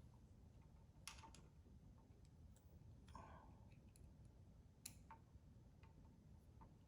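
Near silence with a few faint clicks and taps of a small screw and metal bracket being handled and fitted, about a second in, again around three seconds in, and near five seconds in.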